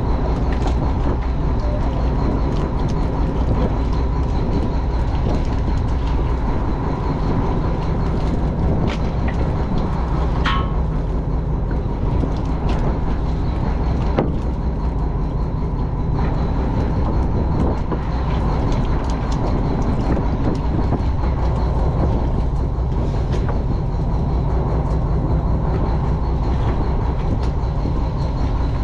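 Fishing boat's engine running steadily at sea, a continuous low drone, with occasional knocks and clicks on deck and one brief ringing clank about ten seconds in.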